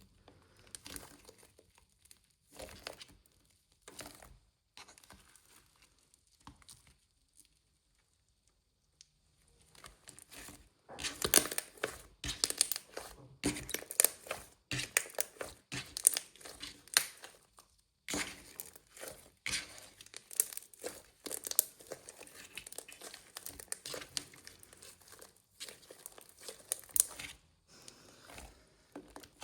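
Clear slime being worked by hand, giving small sticky crackles and pops. A few scattered pops come first, then a short hush, then a dense stretch of crackling from about ten seconds in that thins out near the end.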